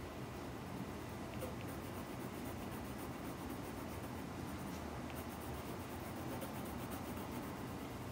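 Pencil scratching on paper: a black coloured pencil shading in steady, continuous strokes.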